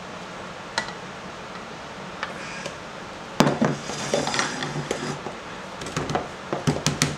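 A glass mixing bowl set down on a wooden table with a sharp clack about three and a half seconds in, followed by a wooden spoon knocking and scraping around a ceramic mixing bowl as thick batter is stirred. Before the clack there are only a few faint clicks.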